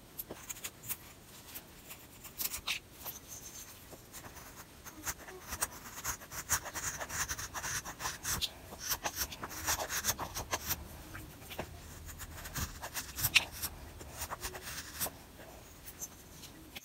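Stainless Morakniv knife shaving wood off the corners of a small wooden lure body: a run of short, irregular scraping strokes and small clicks as curls of wood peel away, busiest in the middle.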